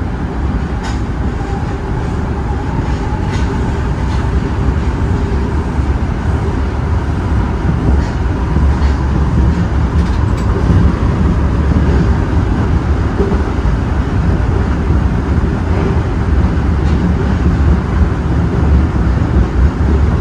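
Osaka Metro 30000 series subway train running underground, a steady low rumble of wheels on rail that grows gradually louder, with a few faint clicks.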